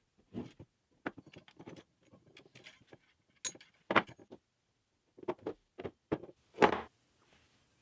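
Small metal parts being handled and set down, a string of light clicks and knocks. There is a sharper clink about 4 s in and a louder knock near the end.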